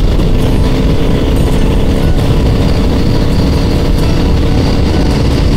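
Royal Enfield Continental GT 650's parallel-twin engine running steadily at road speed, under a heavy rush of wind noise on the microphone.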